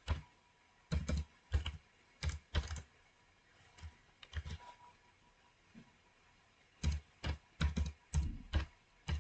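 Typing on a computer keyboard: irregular runs of keystrokes, softer and sparser for a few seconds in the middle.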